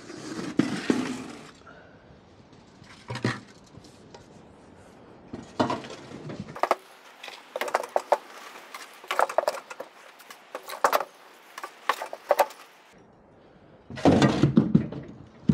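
Shovel scooping and scraping damp shredded-cardboard worm bedding off the bed of a painted metal cart and tipping it into plastic buckets: irregular scrapes with a run of sharp clinks and knocks of the blade against the cart in the middle.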